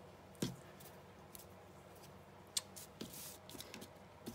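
Faint handling of craft materials while a bow is being made: a few light clicks, the sharpest about two and a half seconds in, and a brief rustle just after three seconds.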